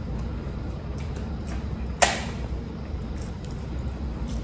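Handling food at a seafood meal: one sharp click or crack about two seconds in, and a few faint small clicks of crab shell and tableware, over a steady low hum.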